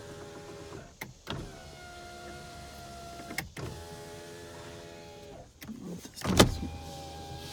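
Power window motors of a 2006 Hyundai Santa Fe's rear doors running the glass down and up in several runs of one to two seconds, each ending with a short clunk as the glass stops. A heavier thump about six and a half seconds in is the loudest sound.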